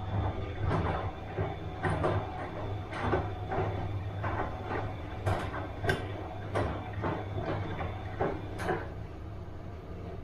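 Bosch washing machine running a wash cycle: a steady low motor hum under repeated swishing as the drum turns, with a few sharp clicks.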